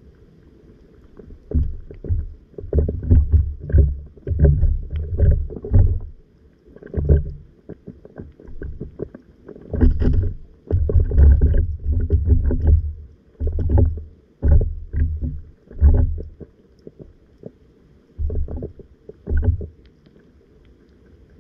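Muffled, irregular low rumbling and knocking of water moving around a camera held underwater, in clusters of short bursts that die away near the end.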